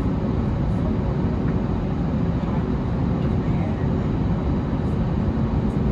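Steady low rumble inside the cabin of an Airbus A320neo-family airliner with its engines running, plus a faint steady hum.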